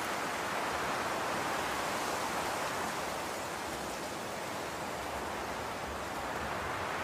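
Steady, even hiss with no distinct strokes or knocks.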